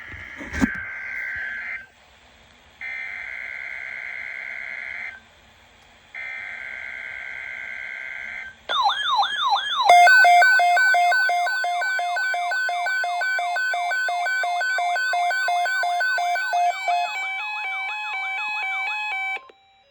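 NOAA Weather Radio SAME alert header: three short bursts of buzzing two-tone digital data with brief gaps between, after a click near the start. The receiver's electronic alert alarm follows, a loud siren-like run of fast sweeping and stepping tones lasting about ten seconds that cuts off abruptly. It signals an incoming severe thunderstorm watch.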